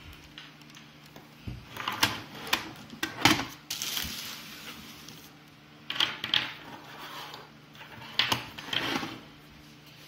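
Handling noise from a plastic cordless power-cleaner gun and its parts being lifted and set down on a wooden table: a scattered series of knocks and clatters.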